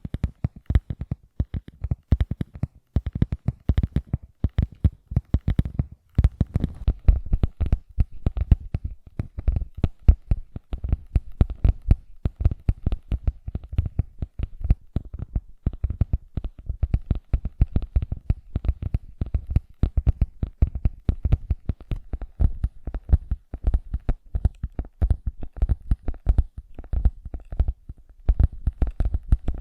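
Fingertips tapping rapidly and continuously close to the microphone, several soft taps a second, heavy in the bass.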